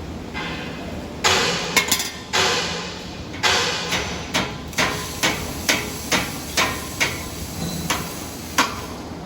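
Repeated sharp knocks, about two a second for several seconds, each ringing briefly, preceded by a few louder rattling clatters.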